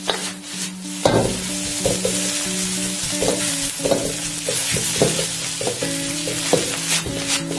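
Fried rice sizzling in a hot wok as a steel ladle scrapes and presses through it to break up the grains, with a sharp scrape or knock of the ladle about once a second.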